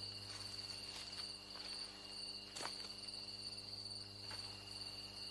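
Crickets chirring steadily in a night-time background, over a low steady hum. There is a faint knock about two and a half seconds in.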